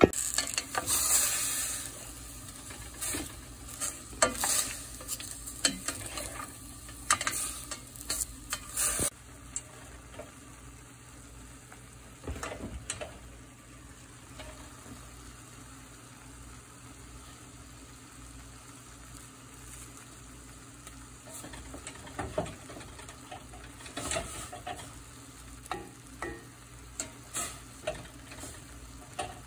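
Cubed beef steak and onion sizzling in a cast-iron skillet, with a spatula scraping and stirring against the pan. The stirring strokes come thick and fast for the first nine seconds, then give way to a steady sizzle, and start again about three quarters of the way through.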